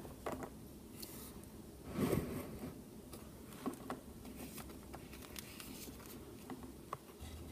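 Faint rustling and scraping of small plastic toy figures being handled and set down on a wooden dollhouse floor, with a soft thump about two seconds in.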